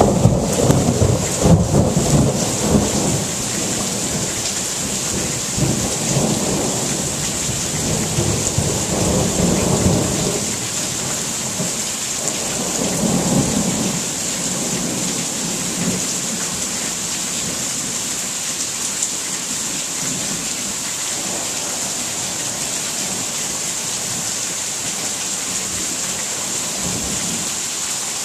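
Thunderstorm: thunder rumbling in several rolls over steady rain. The rumbles fade out about halfway through, leaving the rain.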